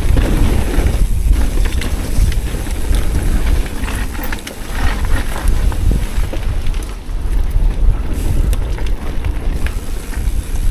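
Wind buffeting the microphone while a Transition Sentinel V3 mountain bike is ridden along a dirt trail, a steady loud rumble with tyre noise and scattered clicks and rattles from the bike.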